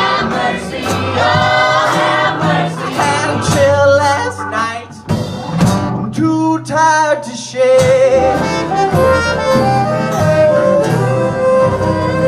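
Live folk-blues band playing: acoustic guitar, fiddles, cello, upright bass and trumpet, with singing over the band.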